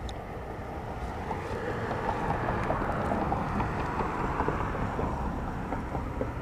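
Outdoor ambience with wind buffeting the microphone and a passing vehicle that swells for a few seconds and fades.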